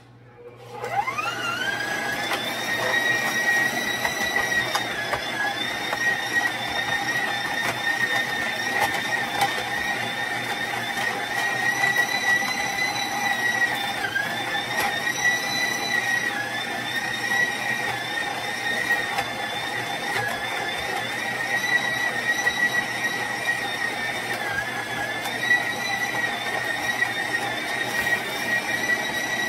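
Stand mixer motor spinning up and running a metal grain-mill attachment at full speed, grinding dry mesquite pods into flour. The motor gives a steady high whine over the grinding; its pitch rises as it starts in the first second, then dips briefly every several seconds as pods are fed in and load the mill.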